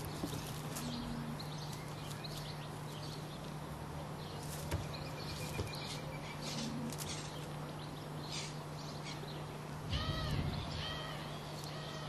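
A grey squirrel scratching and ripping at a fabric plush toy: irregular short rustles and scrapes over a steady low hum. About ten seconds in, a quick run of four or five high chirps.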